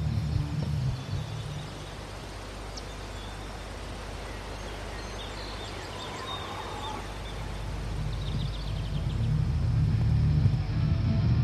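Rural outdoor ambience: a steady background hiss with a few short, high bird chirps in the middle, after music fades out at the start. A low rumble swells near the end.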